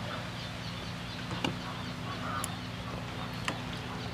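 Eating utensils clicking against ceramic bowls, a few sparse taps, over a steady low hum, with faint calls of poultry in the background.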